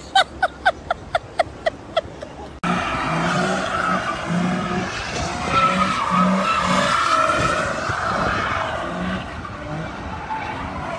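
A quick run of short, sharp chirps, about five a second, then after a sudden cut car tyres squealing, the pitch wavering, with the engine revving as the car spins donuts in a burnout.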